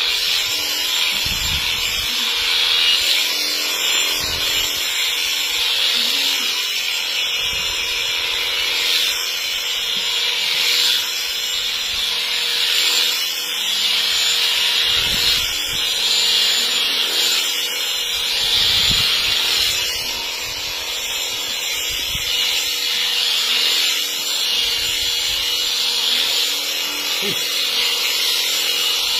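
Electric sheep-shearing handpiece running steadily as its cutter and comb clip through the fleece: a continuous high-pitched buzzing over a steady hum.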